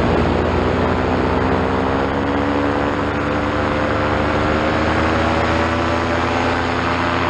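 Vittorazi Moster two-stroke single-cylinder paramotor engine and propeller running loudly in flight, its pitch climbing slowly and steadily as the revs rise.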